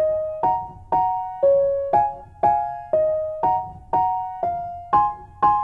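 Background piano music: a slow melody of two notes struck together about twice a second, each ringing and fading before the next.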